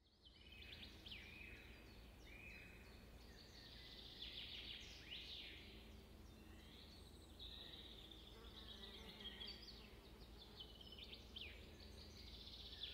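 Faint birdsong: many short chirps and trills from several birds, over a low steady hum.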